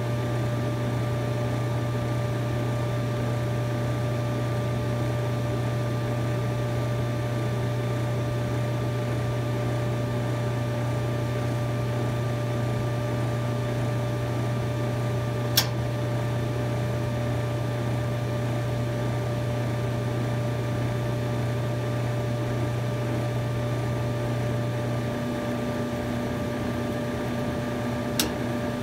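GE gas dryer running with a steady motor and blower hum. A single sharp click sounds about halfway through. The hum shifts a few seconds before the end, and a second click comes near the end as the igniter glows, the point at which the gas valve opens to light the burner.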